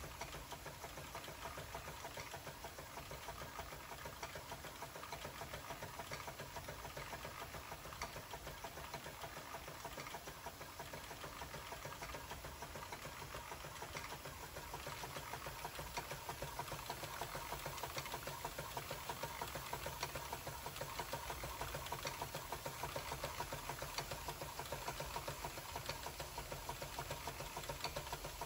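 Jensen 75 toy steam engine running fast under a full head of steam, a steady rapid mechanical clatter of its piston and crank, with the whir of the belts and line shafts it drives. It grows a little louder about halfway through.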